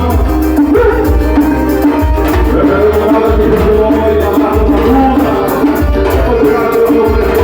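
Loud band music with a heavy, pulsing bass beat, percussion and a melody line.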